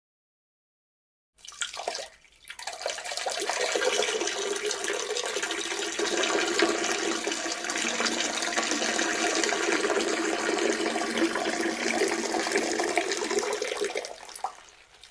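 A peeing sound effect: a steady stream of urine splashing into toilet water. It starts about a second and a half in with a short splash, runs evenly for about twelve seconds, and tapers off near the end.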